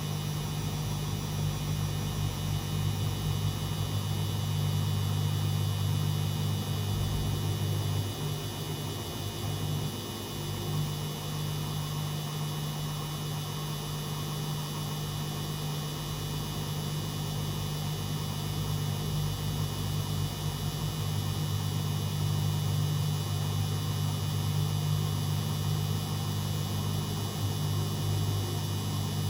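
Beko WMD 46160 washing machine running a 90 °C boil wash, its motor giving a steady low hum that eases briefly about eight seconds in.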